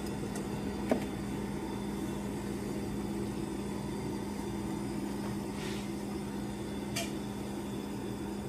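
Steady mechanical hum with a constant low tone, with a light click about a second in and another near the end.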